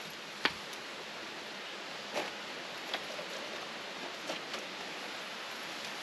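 A hand axe struck once into a log about half a second in, a sharp chop that splits off only a small piece. A few faint knocks follow over a steady background hiss.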